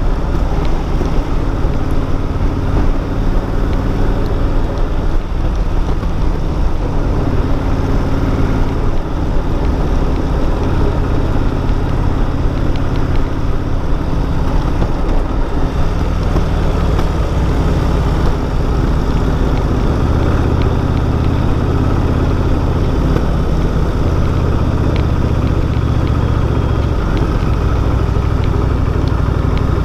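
Cruiser motorcycle engine running steadily while riding along, with road and wind noise. A little past halfway the engine note changes briefly, then holds steadier.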